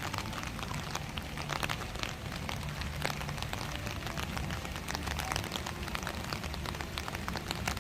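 Steady rain falling, with many small drop ticks over a low steady hum.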